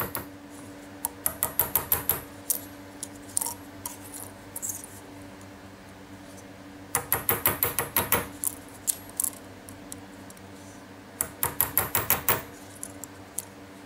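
Small jeweller's hammer tapping a punch to flare the end of a tube rivet on a steel bench block: three runs of quick, light metallic taps, about seven a second, with single taps between.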